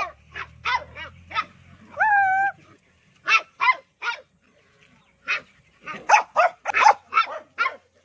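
Small dogs barking at each other in sharp, high-pitched yaps during a play-fight, with one drawn-out whining yelp about two seconds in and a quick run of barks near the end.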